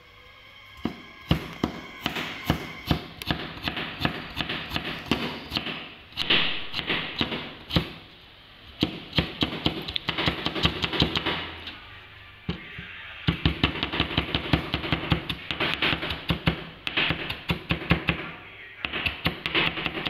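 Meat cleaver chopping carrot on a wooden cutting board: rapid runs of knocks as the blade strikes the board, with a couple of short pauses between runs.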